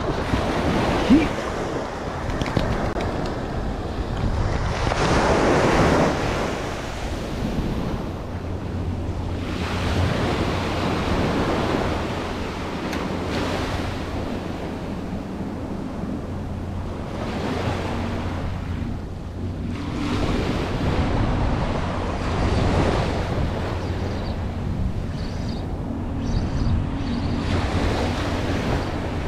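Ocean surf breaking and washing up a sandy beach, swelling and fading every few seconds, with wind on the microphone. A short sharp knock about a second in.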